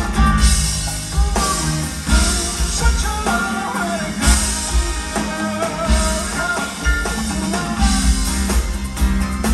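Live rock band playing, with electric guitars, keyboard and a drum kit. Crash cymbals wash in several times over a heavy low end.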